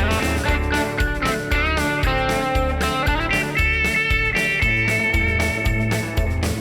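Background music: an upbeat guitar track over a steady drum and bass beat, with a picked melody line that climbs and holds a high note in the second half.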